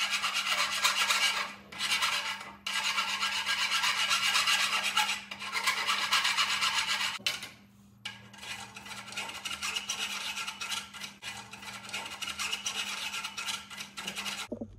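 Steel files rasping on the hacksaw-cut end of a 3/4-inch low-carbon steel pipe to remove the burrs, first outside and then inside the bore, in rapid repeated strokes with two short pauses. The footage is played at double speed.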